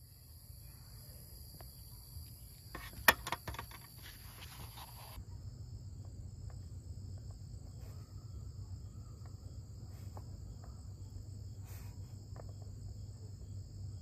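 Chorus of night insects trilling steadily at several high pitches, with the highest one stopping about five seconds in. A cluster of sharp clicks and handling sounds comes about three seconds in and is the loudest thing heard, with a few fainter ticks later over a low steady rumble.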